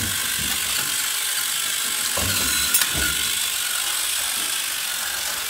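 FRC competition robot's electric drive motors and gearboxes whirring as it manoeuvres, with a few low thuds and one sharp click a bit under three seconds in.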